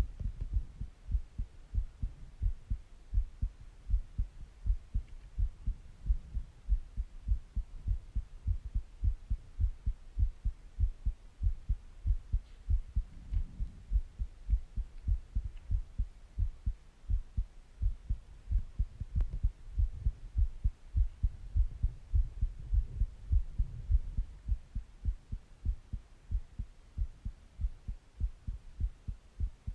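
Human heartbeat: a steady, regular train of low thumps.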